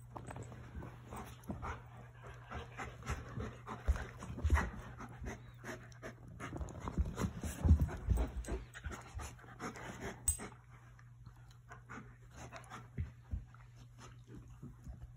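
An Alaskan Malamute and a Newfoundland puppy play-fighting: dog panting with mouthing and irregular scuffles and thumps. The scuffles are busiest around the middle and thin out over the last few seconds.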